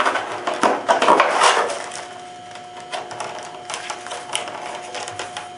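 Stiff clear plastic blister packaging crackling and clicking as hands work in it to take out a pistol. The handling is busiest for about the first two seconds, then thins to scattered light clicks.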